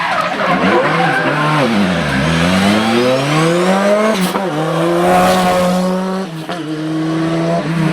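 Historic rally car engine at full attack on a stage: revs drop as the car brakes into a corner, then climb hard under acceleration, with a gear change about four seconds in and further shifts near the end.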